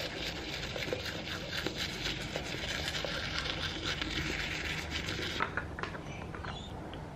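Toothbrush scrubbing teeth: a rapid, scratchy brushing that runs for about five seconds and then stops. A few light clicks follow near the end as the cap of a mouthwash bottle is handled.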